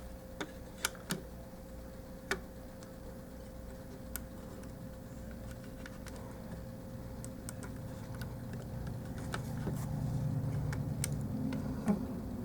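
Plastic Transformers figure being handled as its feet are rotated and heels flipped out, giving a few sharp small clicks and taps in the first couple of seconds and another near the end, over a low steady hum.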